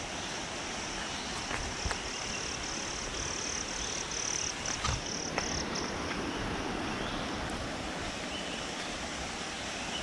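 Rainforest ambience: a steady rushing hiss under a high, steady insect drone that fades out about halfway through, with a few faint clicks.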